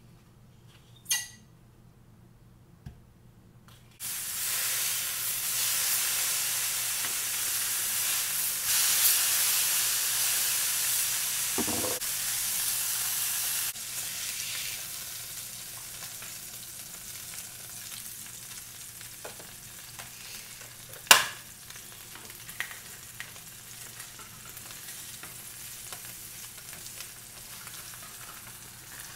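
Hamburger patty sizzling in a hot ridged grill pan. The sizzle starts suddenly about four seconds in, is loud for roughly ten seconds, then settles to a quieter steady sizzle. A single sharp clack comes about two-thirds of the way through.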